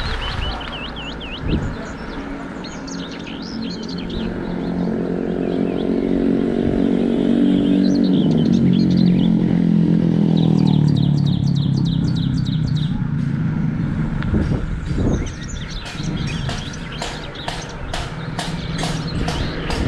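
A motor vehicle passes, its engine note swelling over several seconds and then fading, while small birds chirp and twitter, most busily in the second half.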